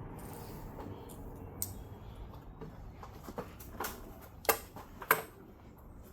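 Several sharp clicks and knocks from handling tools and wood, the two loudest about four and a half and five seconds in.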